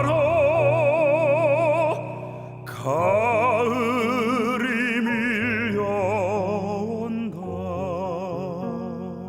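Baritone singing a Korean art song with wide vibrato over piano, pausing for a breath about two seconds in and then holding long notes. The voice stops near the end, leaving the piano playing alone.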